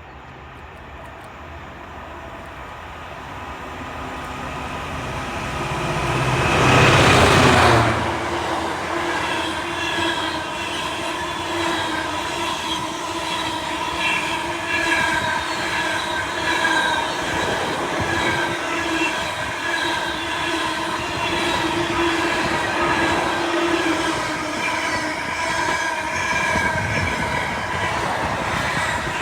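Class 66 diesel freight locomotive approaching and passing, its engine loudest about seven seconds in. A long string of freight wagons then rolls by, wheels clicking rapidly over rail joints, with steady squealing from the wheels.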